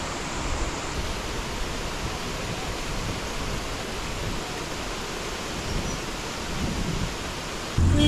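Steady, even rush of water flowing over rocks in a mountain river. Just before the end it gives way abruptly to a louder vehicle engine.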